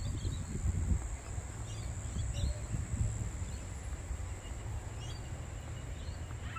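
Outdoor ambience with a steady high-pitched insect drone, scattered short bird chirps, and a low rumble of wind on the microphone.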